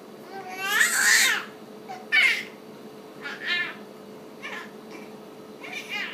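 Baby squealing and cooing in a string of short high-pitched sounds. The longest and loudest comes about a second in, with shorter ones following every second or so.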